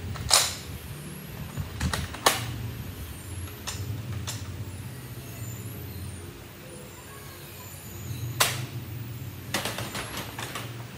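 Sharp plastic clacks from a Nerf Elite 2.0 blaster being handled: one just after the start, another about two seconds in, one near the end and a quick run of clicks just after it. A steady low hum runs underneath.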